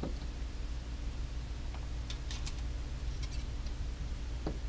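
A few faint, light ticks and clicks of a spoon being handled at a small tinfoil dish and cup while milk is spooned out, with a small knock near the end, over a steady low hum.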